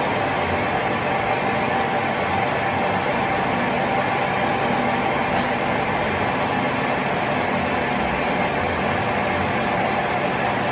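A machine running steadily, a constant even noise with a steady hum and no pauses or changes.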